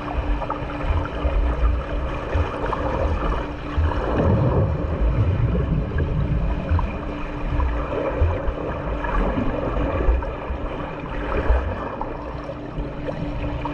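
Water churning and splashing from a swimmer's freestyle strokes in a pool, heavier for a couple of seconds about four seconds in, over a steady low hum.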